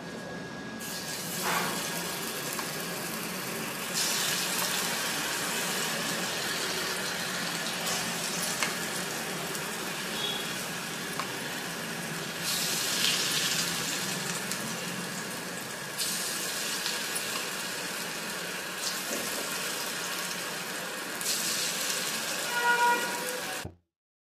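Semolina-and-vegetable appe batter sizzling as it is spooned into the cavities of a hot non-stick appe pan, with light clicks of the spoon. The sizzle gets louder in steps and cuts off suddenly near the end.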